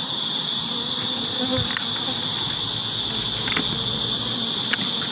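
A steady, shrill insect chorus carries on without a break, with honey bees buzzing around the hive now and then and a few light clicks.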